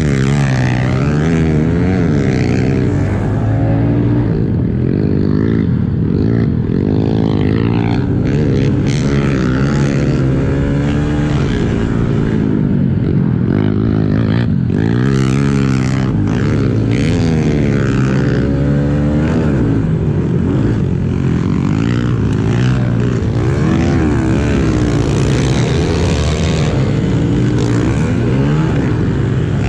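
Honda CRF110F pit bike's single-cylinder four-stroke engine under racing load, revving up and dropping back again and again, its pitch rising and falling every second or two.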